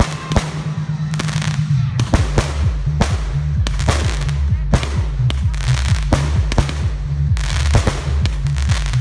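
Aerial fireworks bursting in rapid succession, about two sharp bangs a second, over music with a steady bass line.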